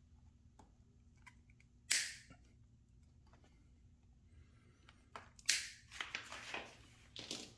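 Diagonal cutters snipping plastic cable-tie tails: two sharp snaps, about two seconds in and again about five and a half seconds in, followed by a few lighter clicks and rustles near the end.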